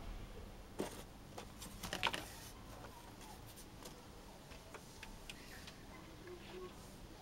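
Light clicks and knocks of small cast-resin orgonite pieces being picked up and set down against one another, on cardboard and in a silicone mould. Two louder knocks come in the first couple of seconds, then only scattered small ticks.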